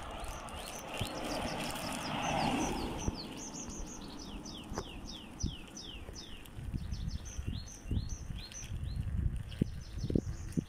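A car passing close by, its noise swelling and fading in the first three seconds. Then a small songbird sings a long run of quick, high, downward-sweeping chirps. Under both is low wind rumble on the microphone with scattered knocks from the moving bicycle.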